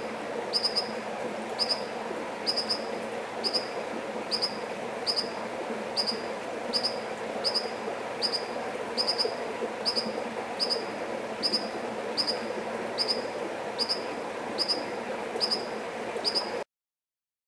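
American dipper calling: a sharp, high single note repeated about twice a second, over the steady rush of flowing water. It breaks off suddenly near the end.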